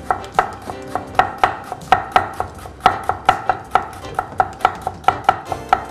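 Chef's knife thinly slicing a lemongrass stalk on a wooden chopping board: a quick, even run of knife strikes on the board, about three to four a second.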